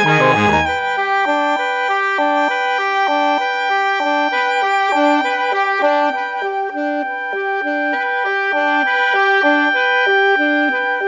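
Background instrumental music: a melody of short, repeating notes over a held steady tone, with a lower part that drops out about half a second in.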